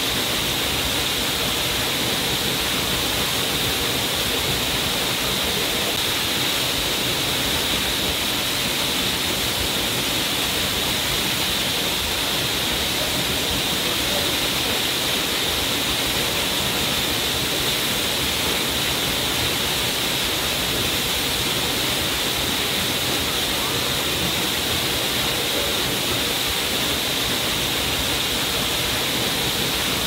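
Waterfall splashing down onto rocks and a pool: a steady, unbroken rush of water with a bright hiss.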